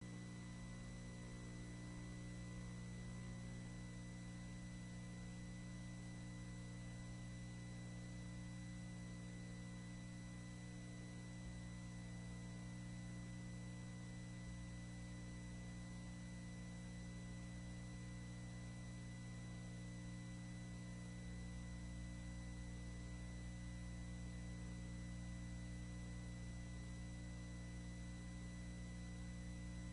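Steady electrical mains hum with faint hiss and a few thin high whine tones on the audio line, with no other sound over it.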